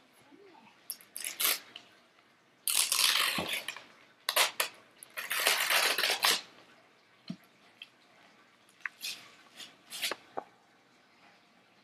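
Christmas wrapping paper being torn and crinkled by a small child's hands as she unwraps a large box: short crackles, with two longer rustling tears about three and five to six seconds in.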